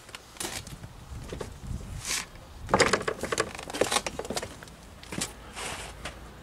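Singer 306 sewing machine head being tilted back upright onto its base, with a cluster of metal clicks and knocks about three seconds in and a few soft rustles around them.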